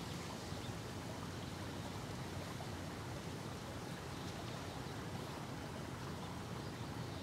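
Steady outdoor background noise: an even hiss, heaviest in the low end, with no distinct sound events.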